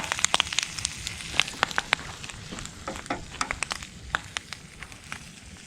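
Breakfast frying in a pan over a campfire: a steady sizzle with many irregular sharp pops and spits.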